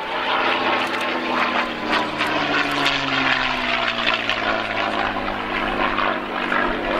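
North American P-51D Mustang's Packard Merlin V-12 engine and propeller in a fly-by, a loud steady drone whose note slides down in pitch from about two seconds in as the aircraft passes.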